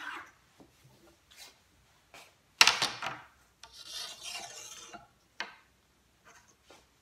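Rasping and rubbing on fabric spread over a wooden table, as a long ruler is moved off the cloth and a hand smooths it flat. The loudest scrape comes just under three seconds in, then a second or so of steady rubbing and one short sharp scrape near the end.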